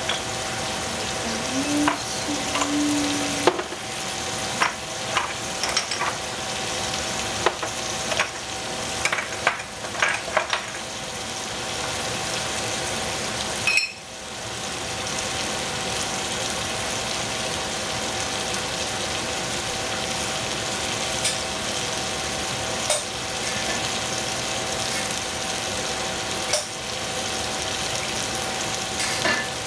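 Swiss chard sizzling in a stainless steel pot on the stove: a steady hiss with scattered crackles and pops, thickest in the first ten seconds or so. The sound drops out briefly about halfway through.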